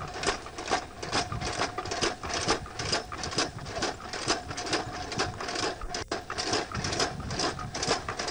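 Steady rhythmic mechanical clatter, about four to five clicks a second, over a faint hum.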